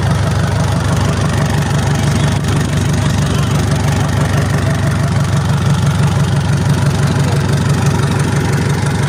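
Mazda T3500 diesel engine, out of the truck with its gearbox attached, idling steadily with an even pulse on a test run after being started.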